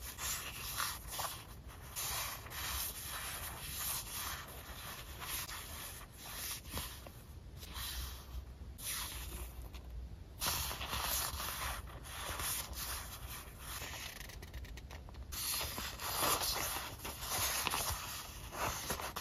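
Paper sticker sheets sliding and rubbing against each other as a handful is fanned and shuffled by hand: irregular rustling strokes, with a short lull about halfway through.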